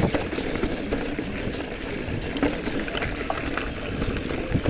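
Giant Trance E+ Pro 2 electric mountain bike rolling along a dirt trail: steady tyre-on-dirt rumble with bike rattle and a few sharp knocks.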